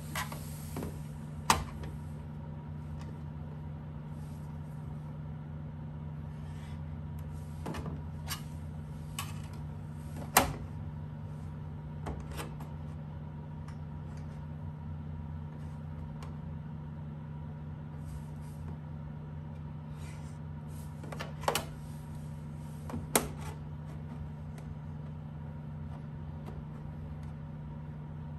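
Steel ruler and marker clicking and tapping against a thin aluminium fuselage skin as a hole centre is laid out: a handful of sharp clicks, the loudest about ten seconds in, two close together near the end. A steady low hum runs underneath.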